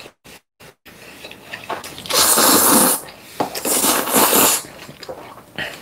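A person slurping ganjajang noodles: two long, loud slurps, the first about two seconds in and the second about three and a half seconds in, with smacking chewing sounds between and after them.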